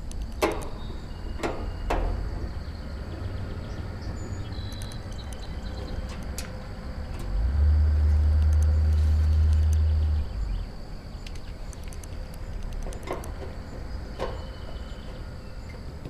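A steady low rumble on the microphone, swelling for about three seconds midway, with a few sharp clicks and knocks from hands working at the cabinet and access panel of an outdoor heat pump unit.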